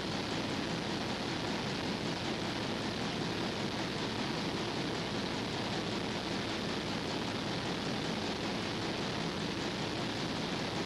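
Steady, even hiss with no distinct sounds in it: the background noise of an old video recording.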